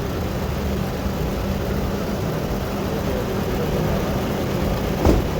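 A car engine running steadily at idle, with a single sharp knock about five seconds in.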